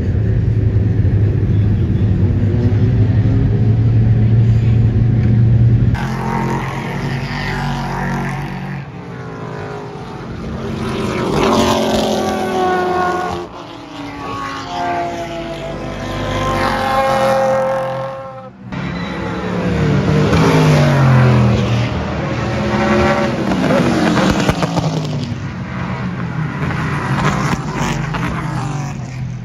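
Mazda 767B's four-rotor rotary engine running at a steady, loud idle for the first few seconds. After a cut, race cars pass on track several times, their engine notes rising and falling as they go by.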